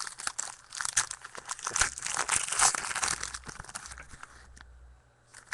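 Trading-card pack wrapper crinkling and tearing as it is pulled open and handled, in quick irregular crackles that die away near the end.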